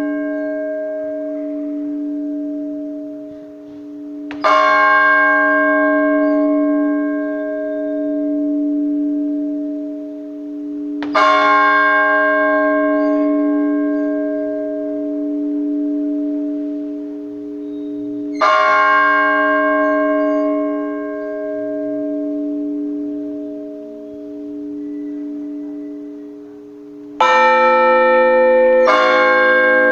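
Russian Orthodox church bells: one large bell tolled slowly, a stroke about every seven seconds, its hum ringing on between strokes, the blagovest that calls to vespers. Near the end several bells strike together in quicker strokes as the full peal on all the bells, the trezvon, begins.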